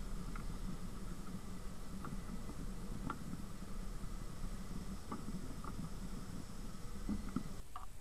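Muffled wind buffeting a glider-mounted camera in flight: a steady low rumble of airflow, with a few faint short ticks.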